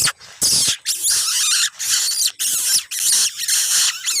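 Harsh, rapid squawking from a pied fantail, in loud, noisy bursts about two a second. These are distress calls of the kind that draw the parent bird in.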